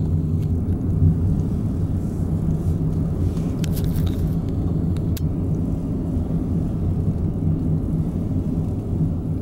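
Honda N-BOX kei car driving, heard from inside the cabin: a steady low drone of engine and road noise, with a couple of brief clicks near the middle.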